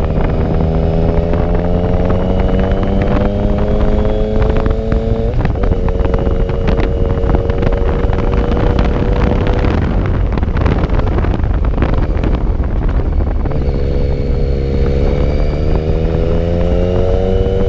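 Motorcycle engine running under way, its pitch climbing slowly as it pulls, with a shift in pitch about five seconds in. Wind rushes over the microphone throughout and drowns the engine for a few seconds in the middle before the rising engine note comes back near the end.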